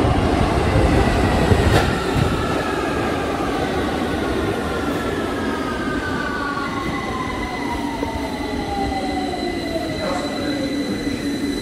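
London Underground Victoria line 2009 Stock train pulling into the station and braking, with its electric motor whine falling steadily in pitch as it slows over the rumble of the wheels on the rails. A steady high tone joins about seven seconds in.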